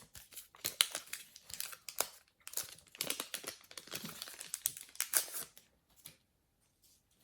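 Foil trading-card packet being torn open and its wrapper crinkled, with irregular crackling that stops about five and a half seconds in.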